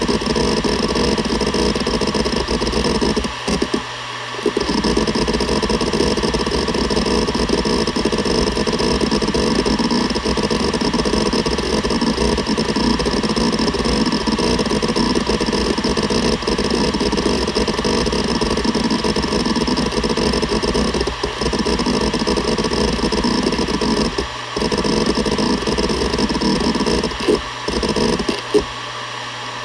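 Seagate Barracuda ES.2 ST31000340NS hard drive with its heads seeking continuously, a dense rapid chatter over the drive's steady whine, broken by brief pauses about four seconds in and near the end.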